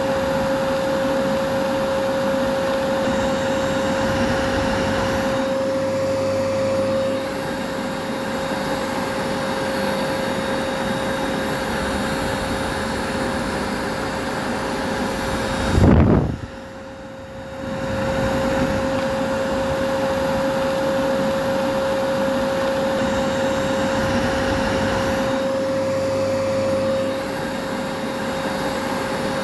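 Vacuum cleaner running steadily, a rushing hiss with a steady whine. About sixteen seconds in there is a sudden low thump, then the sound drops away for about two seconds before the vacuum resumes.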